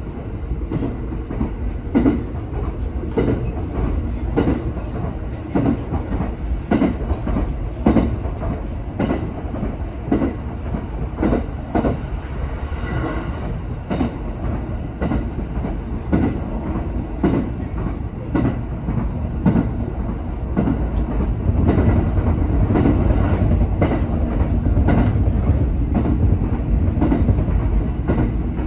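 JR West 227 series electric train running along the line, heard from inside the car: a steady rumble with the wheels clicking over rail joints about once a second. The rumble grows heavier about three-quarters of the way through.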